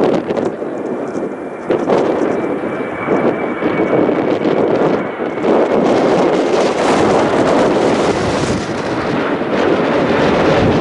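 Jet airliner engine roar that swells from about six seconds in and holds, with a thin steady whine early on and wind buffeting the microphone.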